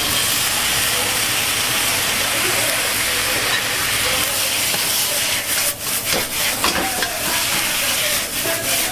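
Sauce sizzling and hissing loudly on a hot wok as cabbage is stir-fried. From about five and a half seconds in, the hiss thins and the metal ladle knocks and scrapes against the wok as it is tossed.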